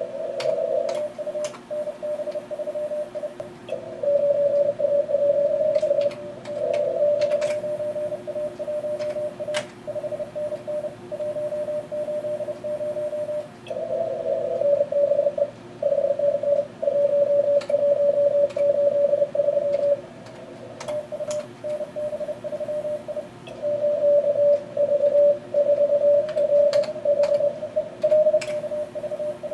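Morse code (CW) from an Elecraft K3 transceiver during a contest: a single mid-pitched beep keyed on and off very fast in quick exchanges, some stretches louder than others. Under it are radio band hiss and a fainter steady tone, with occasional sharp clicks.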